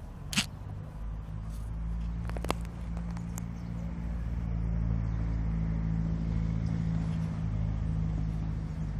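An engine running steadily, a low, even hum that grows louder over the first few seconds and then holds. A sharp click comes about half a second in and a fainter one about two and a half seconds in.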